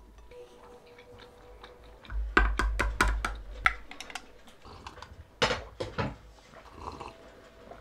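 Stainless knife and fork clinking and tapping on a ceramic plate: a quick run of sharp clicks about two to four seconds in, then a few more clinks about five and a half seconds in.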